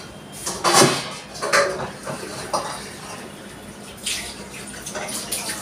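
Steel pot and perforated strainer clattering at a kitchen sink as boiled noodles are drained, with a few sharp knocks early on and water splashing from about four seconds in.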